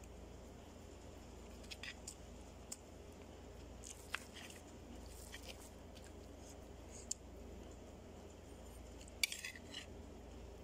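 Metal spoon clinking and scraping lightly on a ceramic plate while eating: a few faint scattered clicks, with a louder cluster of clinks near the end.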